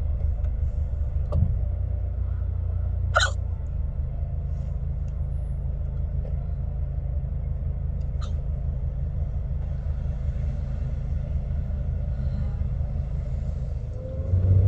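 A woman hiccupping: three sharp hiccups several seconds apart, the second the loudest, over the steady low rumble of a moving car's cabin.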